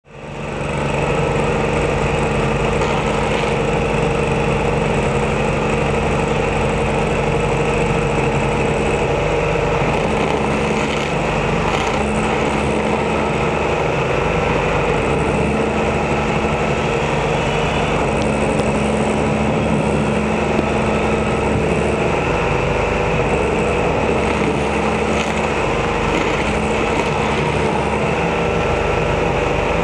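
Stump grinder's engine running steadily at working speed while its spinning cutter wheel grinds into a tree stump.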